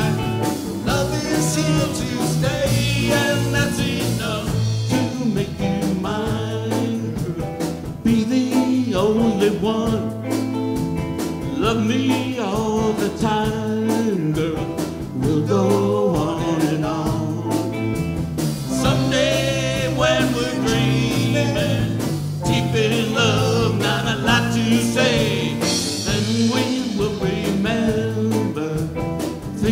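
Live band playing a song on electric guitars, acoustic guitar, keyboard and drums, with a man singing lead.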